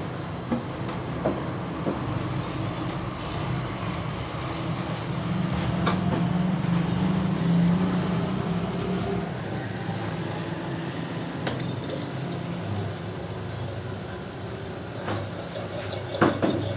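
Cylinder polishing machine running with a steady low hum, with a few sharp metallic clinks as cylinder parts are handled and fitted onto its shaft, the last cluster near the end.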